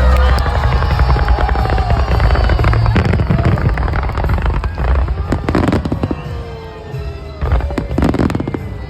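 Fireworks bursting and crackling in rapid succession, with heavier volleys of bursts about halfway through and again near the end, over music playing alongside the display.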